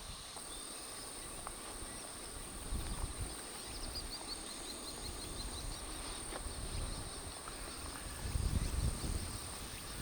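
Insects singing in a steady, high-pitched drone, with a run of rapid chirps a few seconds in. Low rumbling thumps come twice, the stronger one near the end.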